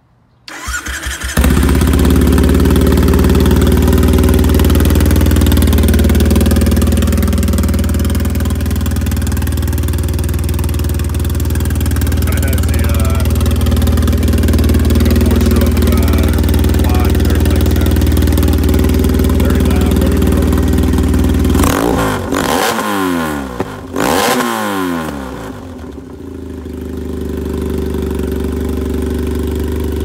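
A carbureted 2007 Triumph Thruxton's air-cooled parallel-twin engine, breathing through a handmade stainless Iron Cobras Fabrication 2-into-1 GP exhaust with a baffle, is started: a brief crank, and it catches within about a second and a half. It idles steadily, is blipped up and down a few times a little over twenty seconds in, then settles back to a quieter idle.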